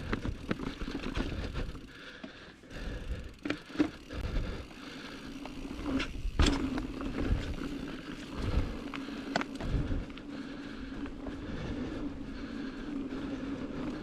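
A mountain bike being ridden over a dirt trail: steady rolling and tyre noise with a constant hum, and several sharp knocks and rattles as the bike strikes rocks and roots.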